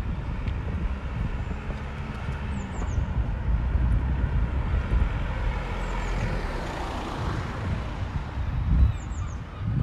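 A car driving past on a street, its tyre and engine noise swelling as it goes by about seven seconds in, over a steady low rumble.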